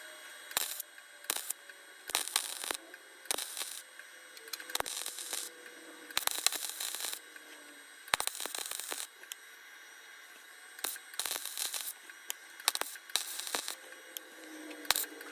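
Wire-feed welder laying short tack welds on a sheet-metal patch panel: about a dozen crackling, hissing bursts, each under a second or so, with brief pauses between.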